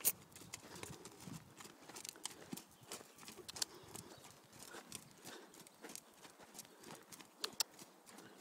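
Hoofbeats of a Tennessee Walking Horse moving loose around a dirt round pen: a run of soft, irregular strikes on the footing, with one louder knock right at the start.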